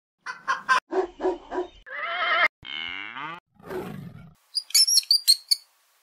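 A rapid sequence of different short animal calls, one after another: a few short calls, a warbling call, a call that sweeps down and back up in pitch, a rougher call, then a run of high, quick chirps near the end.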